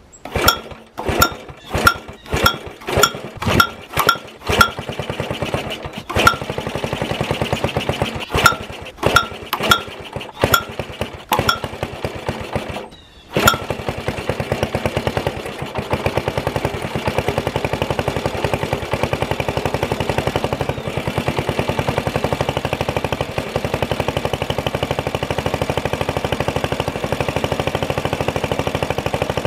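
Old Briggs & Stratton single-cylinder engine starting up and running unevenly, with a string of loud sharp pops over the first dozen seconds. After a brief drop about 13 seconds in it runs steadily.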